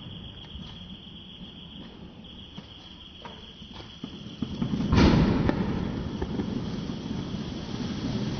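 Pivotal Green mini fountain firework: a few seconds of quieter crackling, then a sudden loud burst about five seconds in, after which it keeps spraying with a steady rushing hiss.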